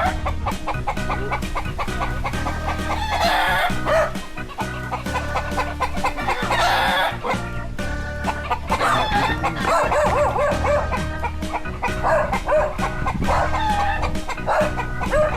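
Chickens clucking and a rooster crowing several times over background music with a steady beat.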